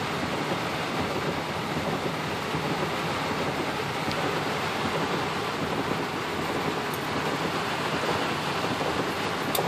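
Heavy rain beating steadily on the car's roof and windshield, heard from inside the cabin as an even, continuous hiss and patter.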